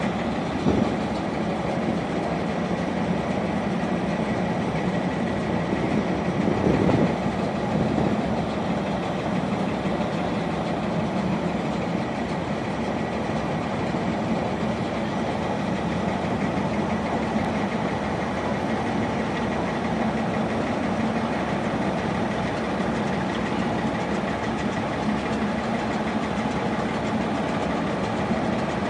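Diesel locomotive engine idling steadily, with a brief louder rumble about seven seconds in.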